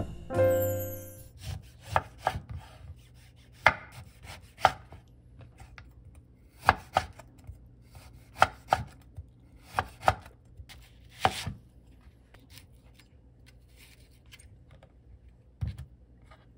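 Chef's knife slicing lemon and then onion on a wooden cutting board: irregular sharp taps of the blade striking the board, loud for the first ten seconds or so, then fainter cuts with one more knock near the end.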